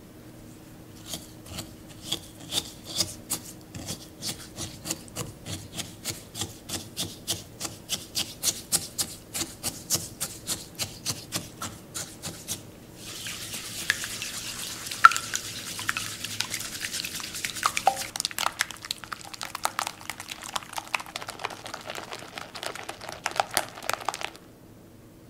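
A silicone-coated whisk mixes egg whites, sugar and rum in a glass bowl. At first it makes steady stirring strokes, about two or three soft ticks a second. About halfway through it speeds into fast whisking, a continuous wet, frothy rustle that whips the whites to foam and stops abruptly just before the end.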